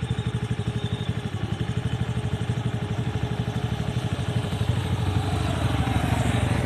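Motorcycle engine running steadily under way, its rapid firing pulse heard from the bike, getting a little louder about five seconds in.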